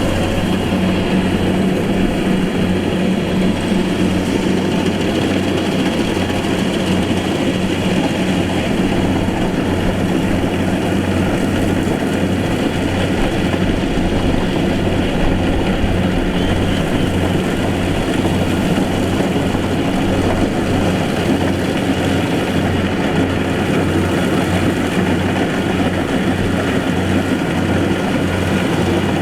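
Combine harvester's diesel engine running steadily under load, with a regular low throb.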